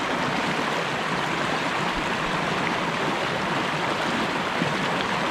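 River water rushing steadily over a low stone weir, an even unbroken rush of whitewater.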